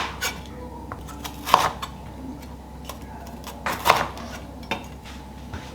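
Dishes and cutlery clinking as they are handled and set down: a few separate sharp knocks with a short ring, the two loudest about a second and a half in and near four seconds in.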